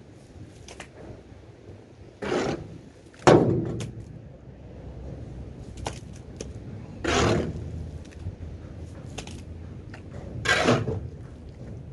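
Shovel scraping manure along the floor of a livestock trailer, four separate strokes a few seconds apart, one of them opening with a sharp knock of the blade about three seconds in.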